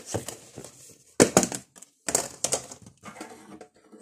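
A plastic butter tub being handled and its lid pried off: several bursts of crinkling, crackling plastic with small snaps, the loudest about a second in.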